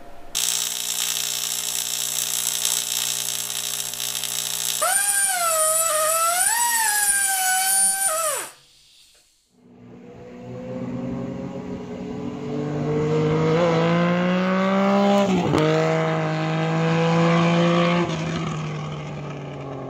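Motorcycle engine running steadily, then revved up and down a few times. After a short break it accelerates through the gears, with one shift about two-thirds of the way through, and then fades out.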